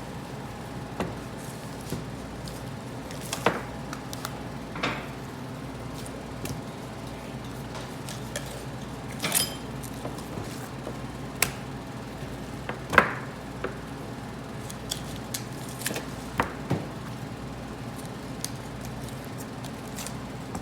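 A knife cutting through a whole raw chicken as it is deboned: scattered, irregular taps, scrapes and knocks of the blade and carcass on a cutting board, the loudest about two-thirds of the way through, over a steady low background hum.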